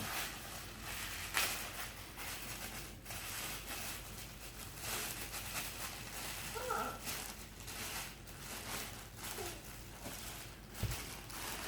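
Packing paper rustling and crinkling as hands rummage through a shipping box, with scattered small crackles and handling noises.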